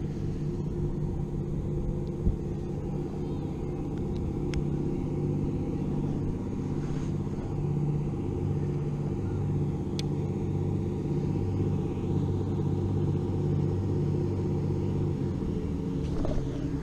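A steady low hum of an engine running at idle, with a couple of faint sharp clicks.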